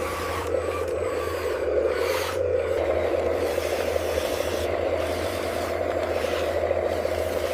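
Small electric motors and gearboxes of a radio-controlled model construction machine running with a steady whine, while soil and gravel scrape and rub under the blade or bucket.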